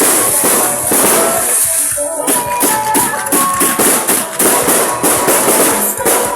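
Music with a fast tambourine-like percussion beat and held melodic notes. It comes in over a dense, loud hiss that fills about the first two seconds.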